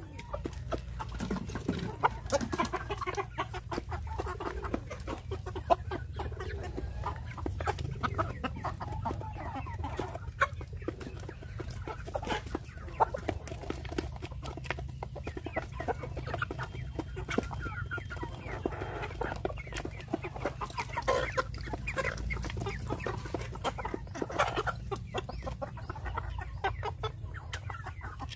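A flock of chickens clucking while they feed, with many quick taps of beaks pecking pellets from a plastic feeder tray.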